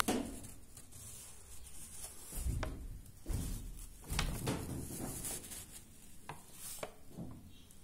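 Handling noise from a handheld phone, rubbing and light clicks, with three dull thumps about a second apart.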